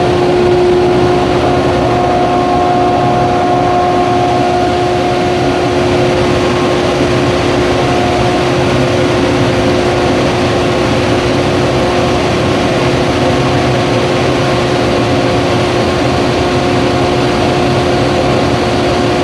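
Tamglass glass tempering furnace line running: a loud, steady machine noise with a steady whine on top.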